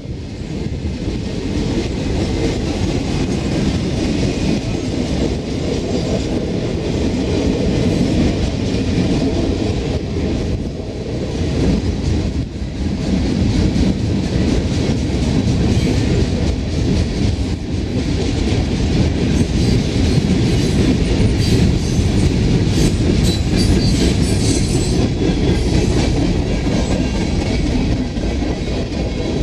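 Freight cars of a long mixed freight train rolling past at close range, their wheels clacking steadily over the rail joints. A faint high squeal from the wheels comes in about two-thirds of the way through.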